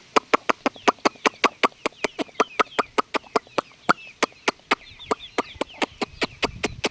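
Chickens making faint high cheeps and chirps behind a rapid run of sharp taps, about five a second, which become sparser near the end.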